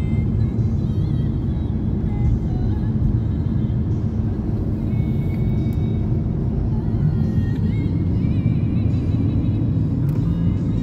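Steady road and engine rumble heard from inside a moving car's cabin, with music playing over it.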